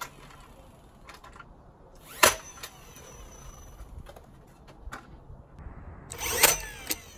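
Craftsman V20 cordless 16-gauge finish nailer firing twice, driving finish nails through a cedar plank into a furring strip: one sharp crack about two seconds in and another near the end.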